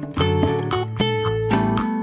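Background music led by plucked guitar, with a bass line and a steady beat.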